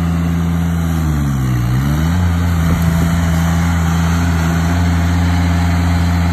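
Engine of an Altec tracked aerial lift running steadily as the machine crawls on its tracks. About a second in, its pitch dips and comes back up once.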